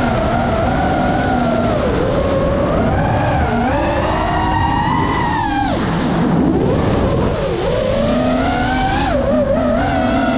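GEPRC Mark 5 FPV quadcopter's motors whining, the pitch rising and falling continuously with the throttle. It drops steeply twice past the middle and climbs back, then wavers briefly near the end.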